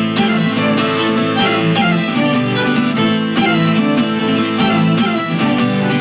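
Instrumental passage on acoustic instruments: a bowed cello playing sustained notes over a strummed acoustic guitar in a steady rhythm.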